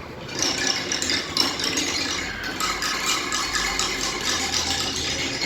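A hand-held rattle being shaken continuously, giving a dense, rapid rattling that starts about half a second in.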